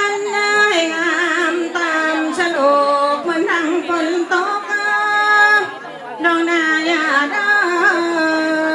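Korat folk song (phleng Khorat): a single voice sings long held notes that waver and slide between pitches, pausing briefly about six seconds in.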